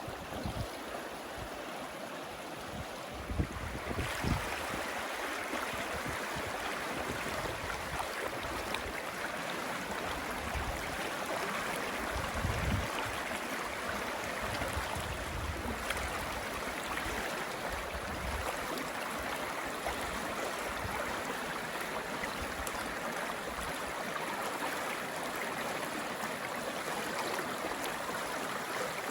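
Running water of a stream or creek, a steady rushing that gets a little louder about four seconds in, with occasional low rumbles underneath.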